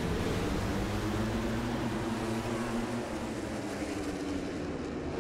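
A full field of MotoGP racing motorcycles accelerating off the start grid, many engines running at high revs at once, with a few pitches rising near the end as bikes pull away.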